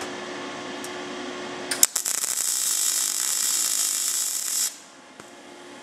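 MIG welder arc crackling steadily for about three seconds. It starts about two seconds in with a few sharp pops and cuts off suddenly near the end. The machine is set with too much voltage and wire speed for thin car-body sheet, hot enough to melt holes in it.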